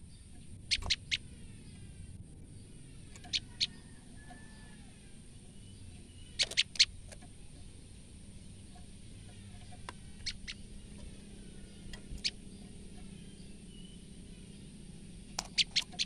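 Female common tailorbird giving short, sharp alarm calls in quick groups of two to four, a group every few seconds, the loudest around six seconds in. These are her fear calls.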